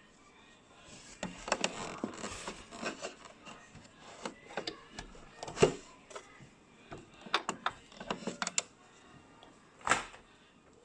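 Irregular clicks and knocks with bursts of rustling, like objects and fabric being handled; the sharpest knocks fall about halfway through and near the end.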